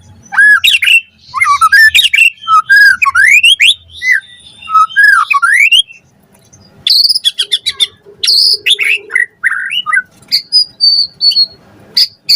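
White-rumped shama (murai batu) singing energetically: a rapid run of varied whistled notes, rising and falling slides and chattering phrases. It pauses briefly about halfway, then resumes with a long, steady high whistle near the end.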